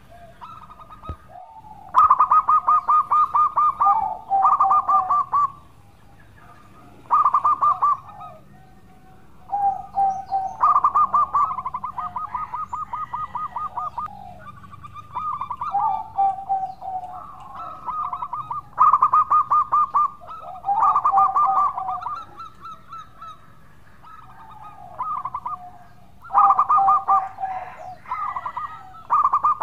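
Zebra dove (perkutut) singing its cooing song: phrase after phrase of fast stuttering staccato coos, each ending in lower drawn-out coos, with short pauses between phrases.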